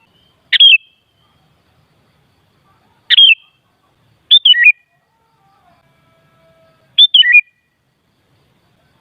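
Sooty-headed bulbul (kutilang) calling: four short, loud whistled phrases, each stepping down in pitch, spaced one to two and a half seconds apart.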